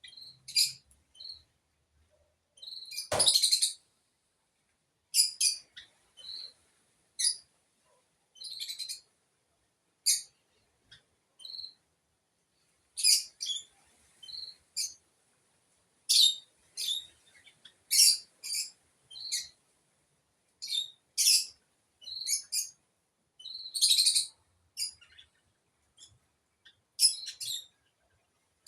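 A bird chirping in short, high-pitched calls repeated at irregular intervals. A single sharp click sounds about three seconds in.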